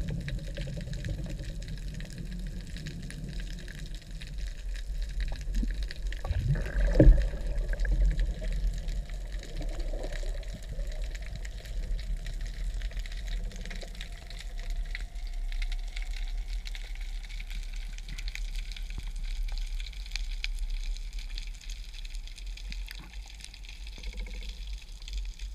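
Underwater ambience heard through a camera's waterproof housing: a steady low water rumble with faint crackling and scattered clicks, and one louder bump about seven seconds in.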